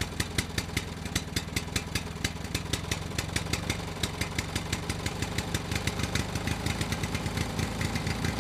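Tractor engine sound running steadily: an even, rapid diesel-like chugging of several beats a second.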